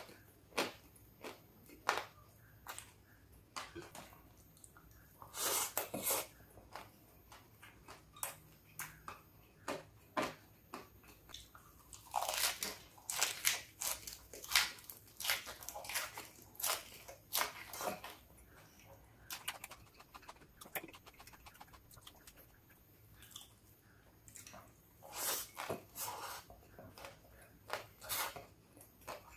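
Close-miked chewing of kampung fried rice mixed with crispy fried anchovies, eaten by hand: irregular crunching that comes in several denser bursts as fresh mouthfuls are bitten into.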